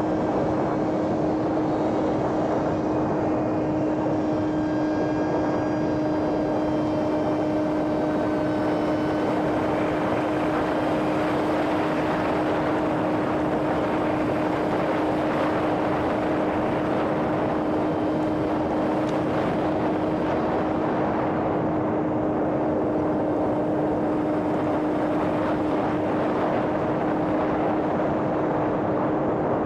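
Homemade radio-controlled airplane's electric motor and propeller running in flight: a steady drone at an unchanging pitch over an even rushing noise.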